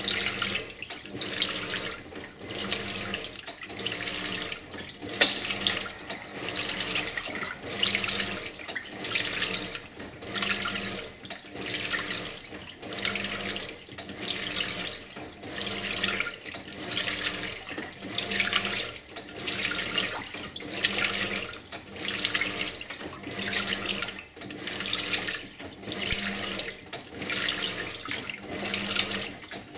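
Simpson Esprit 550 top-load washer agitating a full load of clothes in water: a rhythmic swish of water about once a second, with the motor humming in pulses with each stroke.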